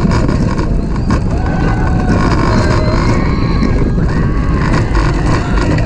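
Roller coaster riders yelling in several long, drawn-out cries over a constant rush of wind and the rumble of the moving coaster train.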